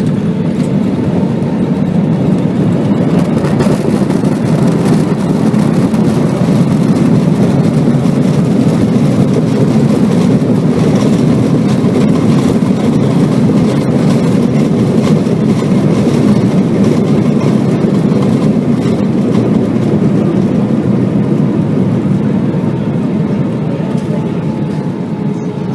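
Airbus A320ceo cabin noise during the landing: a loud, steady low rumble of jet engines and rushing air that swells over the first ten seconds or so and eases near the end.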